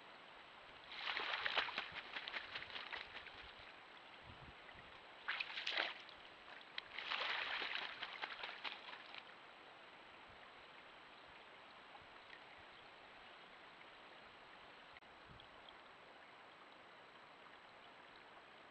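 Bald eagle splashing as it bathes in shallow open water: three bouts of splashing in the first nine seconds, the second one short. After that there is only a steady faint hiss.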